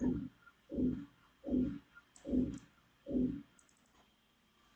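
Computer mouse clicking a few times, faint sharp ticks about two seconds in and again near the end. Under them runs a louder series of dull low thuds, about one every 0.8 seconds, that stops after about three and a half seconds.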